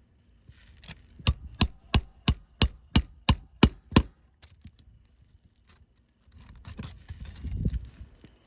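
Hand hammer driving a nail into a roof shingle: nine sharp strikes, about three a second, each with a short metallic ring. Near the end, a rough scraping and rustling of material being handled.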